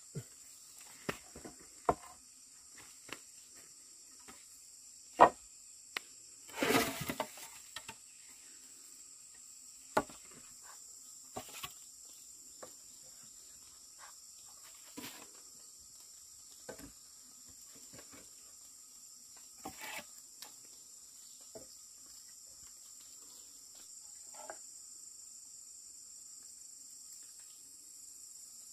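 Steady high-pitched insect chirring, with scattered soft knocks and clicks and a brief louder rustle about seven seconds in.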